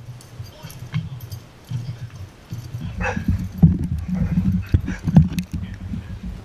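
A dog's paws thumping and scuffling on dirt and dry leaves close to a ground-level camera, in uneven thumps that grow louder about three seconds in.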